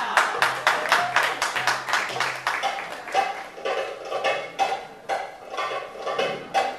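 Finger cymbals (zills) struck in a quick rhythm, each strike a bright metallic clink that rings briefly. The strikes come densely at first, then settle into a sparser, grouped pattern about three seconds in.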